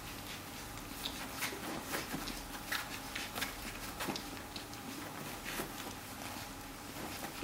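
Two-week-old Labrador retriever puppies suckling at their mother, soft irregular wet smacking clicks, a few a second.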